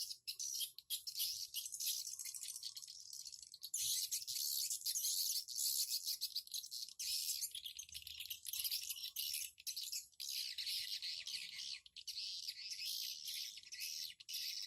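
Swiftlets chirping: a rapid, high-pitched, rattling twitter that keeps going, with a few brief dips.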